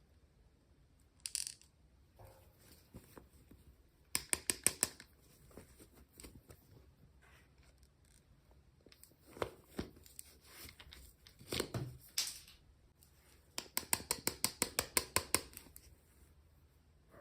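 Packaging being opened by hand: short rustles and two quick runs of sharp clicks, like plastic or wrapping being torn or snipped open.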